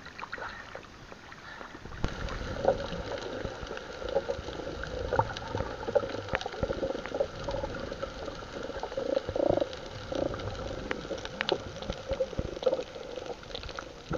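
Water bubbling and gurgling, with many small clicks and splashes over a steady hum; it gets louder and fuller about two seconds in.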